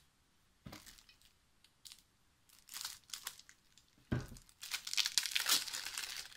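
Plastic shrink-wrap being torn and peeled off a deck of cards: scattered crackles at first, a dull knock about four seconds in, then dense, continuous crinkling.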